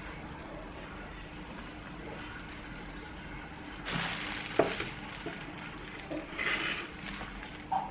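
Low room tone for the first half, then clear plastic wrapping crinkling and rustling, with one sharp knock about halfway through as the plasma ball's plastic base is set down on the table.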